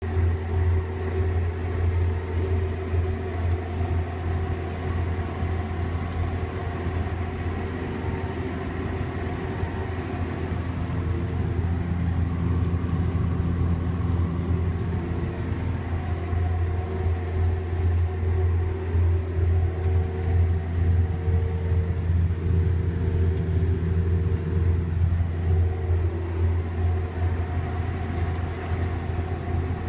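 Agrifac Condor self-propelled crop sprayer running steadily in the field, heard from inside its cab: a constant low drone with a few steady higher tones over it.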